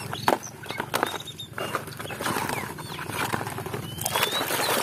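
Muddy plastic toys knocking and clattering as they are handled in a plastic basket. About four seconds in, water sloshing and splashing as a toy is scrubbed by hand in a tub of muddy water.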